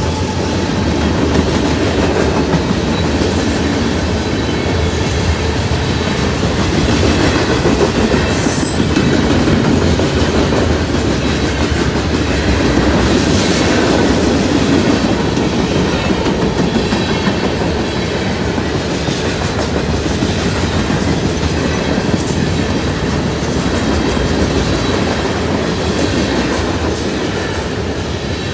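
CSX freight train's cars rolling past the trackside, a steady rumble of wheels on rail with short sharp high-pitched metallic sounds now and then.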